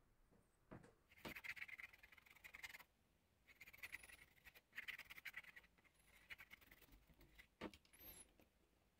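Faint scratchy rubbing in several bursts as a small applicator is worked over the rough flesh side of a leather panel, with a couple of light taps.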